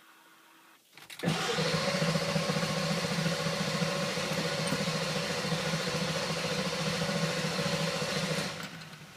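Starter cranking a Ford 7.3L Powerstroke V8 turbo-diesel steadily for about seven seconds without it catching, then stopping: a hard-start, no-start condition that is overcome only with starting fluid.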